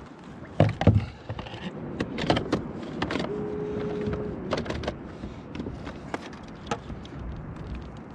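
Scattered knocks, clicks and clatter of a halibut and a steel gaff being handled on a plastic fishing kayak's deck, with a brief held tone about three seconds in.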